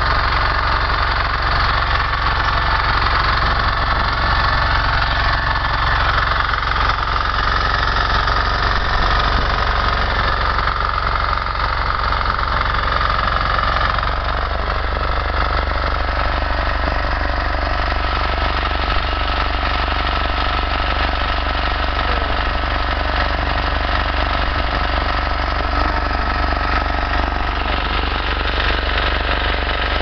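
Walk-behind power tiller's engine running steadily under load while it drives a potato digger attachment through the soil. About halfway through, the engine note drops slightly and holds there.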